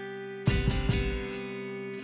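Background music: a held, distorted electric-guitar chord, with a short run of heavy drum hits about half a second in.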